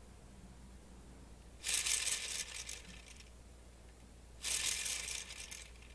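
Plastic LEGO Technic gears rattling in two bursts of rapid clicking, each a second or so long, as the model helicopter's knob is turned by hand to drive the bevel-gear train and spin the rotor.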